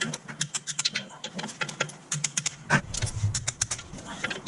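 Irregular run of short metallic clicks and clinks from hand tools working on the clutch cover bolts.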